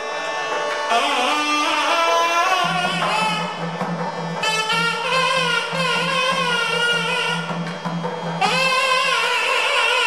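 South Indian temple music: a nadaswaram, the long double-reed pipe, plays a gliding, bending melody over a steady drone from a hand-pumped shruti box. The drone comes in about three seconds in and drops out near the end.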